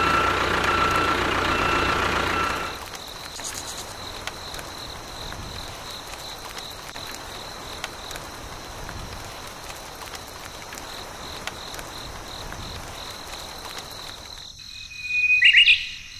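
Tractor engine running, cutting off about three seconds in. A steady soft hiss of rain follows, with a high, steady insect chirring. A brief louder sound with a pitched sweep comes near the end.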